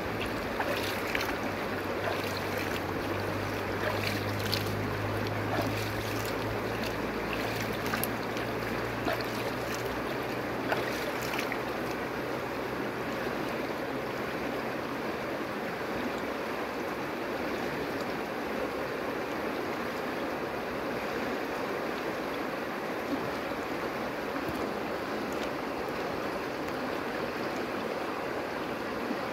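Shallow river rushing over stones in a steady wash of running water, with small splashes and plinks in the first half.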